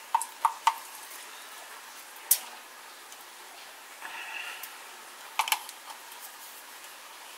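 A spoon scraping and knocking inside a small metal can of tomato paste, making scattered sharp clicks with one louder knock a little over two seconds in. The thick paste is being worked out of the can.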